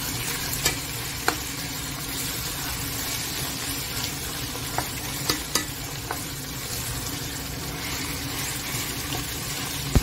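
Raw minced meat frying over browned onions and garlic in a pot, with a steady sizzle, and a few sharp knocks of a silicone spoon against the pot as it is stirred.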